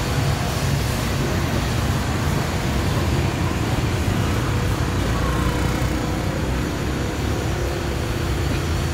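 Street traffic, mostly motor scooters with some cars, running past as a steady rumble with no single vehicle standing out.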